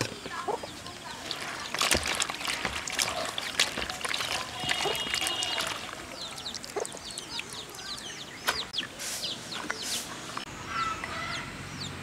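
Chickens clucking, with many short high chirps that fall in pitch, several a second, and a few sharp knocks.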